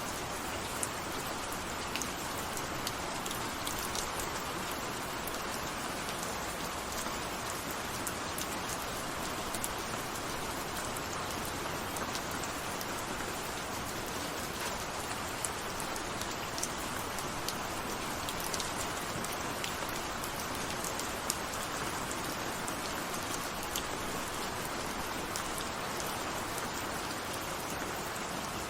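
Steady, continuous rainfall, a dense even hiss with scattered individual drop ticks.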